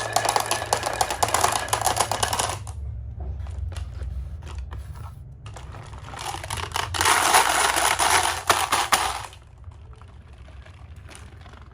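Many marbles rolling and clattering down a wooden HABA marble run, a dense rapid clicking. It comes in two loud rushes, one at the start and one from about six to nine seconds in, with scattered single clicks between them and afterwards.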